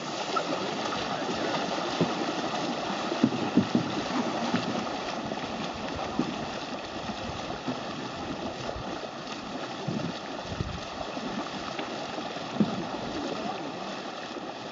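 Water splashing and gurgling around a small boat, with a few irregular knocks.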